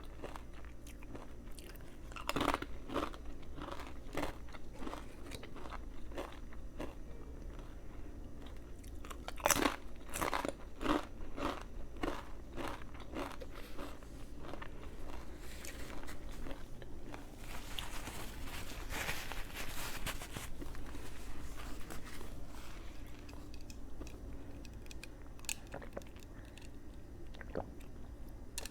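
Close-miked chewing of a Subway veggie patty sandwich: repeated crisp crunching bites and chews, loudest a little before halfway.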